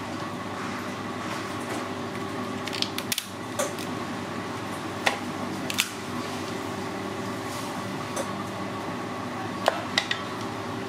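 Cooked mud crab being cut and picked from its shell with scissors: a few sharp clicks and snaps of blade and shell over a steady background hum.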